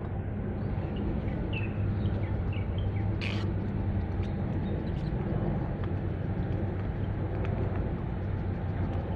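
A steady low rumble with a faint hum underneath. A few short bird chirps sound about one to three seconds in, and there is a brief hiss a little after three seconds.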